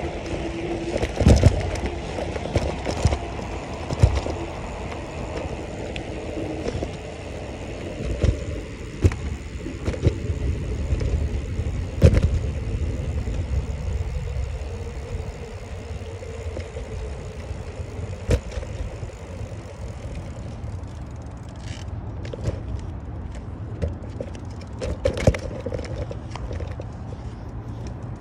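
A bicycle being ridden: a steady low rumble of tyres and wind on the handlebar-held phone's microphone, with several sharp knocks and rattles from the bike, perhaps over bumps in the path.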